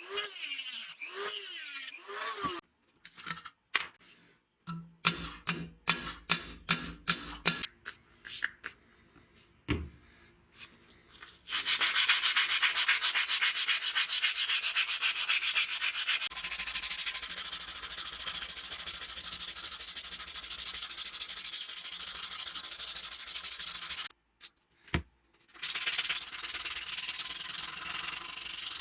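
Sanding: a steady, even abrasive hiss that starts about a third of the way in, runs for roughly twelve seconds, stops, and starts again near the end. Before it come a string of sharp taps and clicks, several in quick succession.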